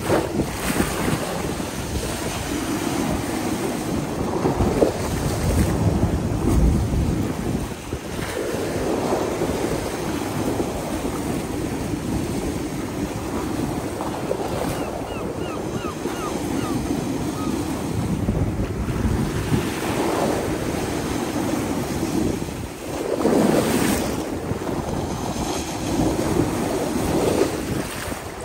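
Sea surf washing onto the beach, with wind rumbling on the microphone in uneven gusts.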